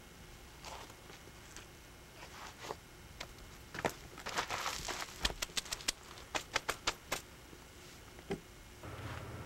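Sneakers scuffing and stepping on sandstone rock as a man climbs down a slab: scattered scrapes, then a run of sharp clicks and gritty scuffing. A steady low hum comes in near the end.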